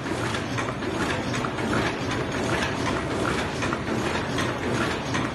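SURAMACHINE SM 85 ultrasonic paper cup machine running, a steady fast mechanical clatter of many clicks and knocks.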